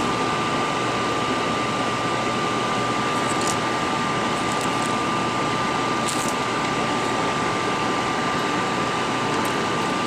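Steady fan noise: an even hiss with a constant high whine running through it, and three faint light ticks.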